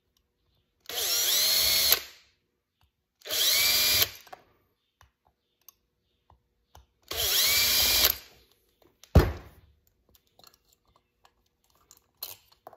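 Cordless drill-driver running in three short bursts, each spinning up with a rising whine and winding down, backing out the float-bowl screws of a 28 mm Mikuni carburetor. A single sharp knock follows about nine seconds in, then light clicks of small metal parts being handled.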